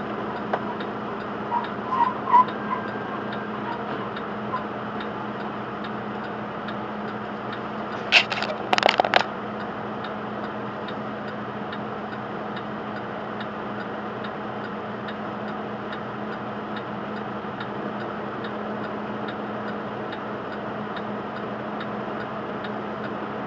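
Steady idling hum of a semi truck heard from inside its cab, with a faint, regular ticking throughout. A short cluster of sharp clattering knocks comes about eight seconds in.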